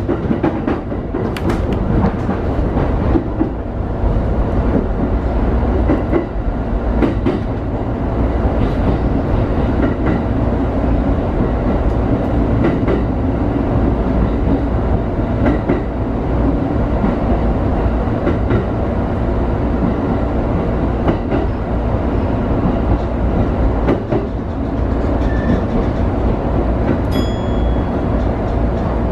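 E231-series electric commuter train running along the line, heard from inside the front car: a steady rumble of wheels on rail with scattered clicks over rail joints. A brief high beep sounds near the end.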